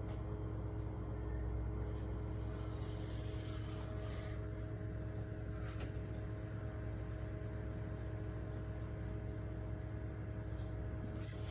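A steady mechanical hum: a low rumble with several constant tones held unchanged, cutting off just before the end.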